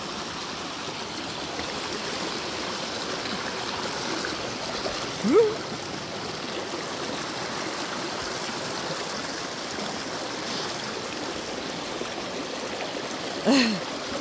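Shallow stream running steadily over stones and a rocky bed. A person's short voiced sound rises out of it twice, once about five seconds in and again near the end.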